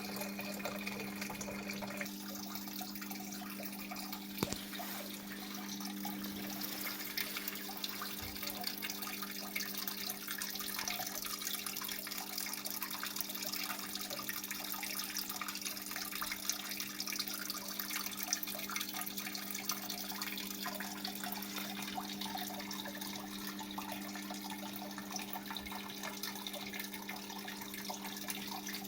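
Waterfall: falling water splashing in a steady, unbroken rush, over a steady low hum.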